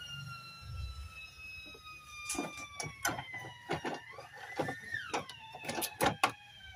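A siren-like wail with overtones slowly falls in pitch, dips, and rises again near the end. Over it from about two seconds in comes a quick run of sharp clicks and knocks from hands handling the TV's plastic back cover.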